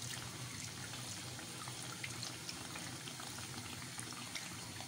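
Dal kachori deep-frying in a kadhai of deep hot oil: a steady sizzle with scattered faint crackles.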